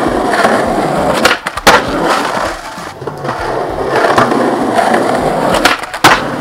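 Skateboard wheels rolling steadily on rough concrete, with a few sharp clacks along the way. Near the end come two loud cracks: the tail popping for an ollie over a bar and the board landing.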